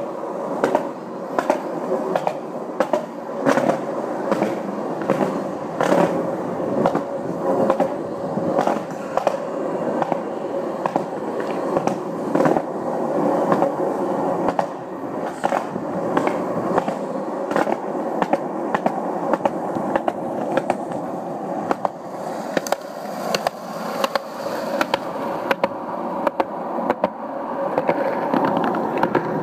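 Skateboard wheels rolling steadily over a concrete sidewalk, a continuous rough rumble broken by sharp clacks about once a second as the wheels cross the slab seams.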